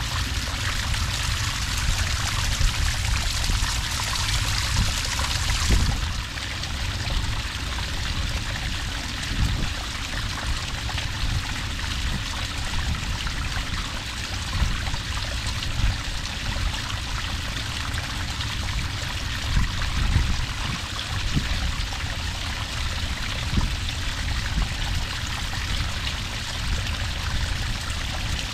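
Small cascade of water pouring steadily onto sand, a continuous splashing trickle with a deep rumble underneath. About six seconds in the sound turns slightly duller.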